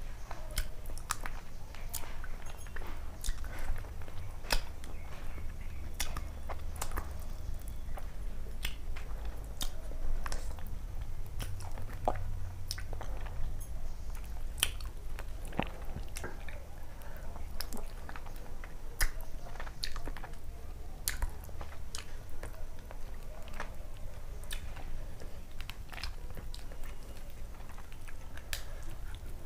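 Close-miked chewing of rice and fish curry eaten by hand, with many sharp, wet mouth clicks and smacks scattered throughout.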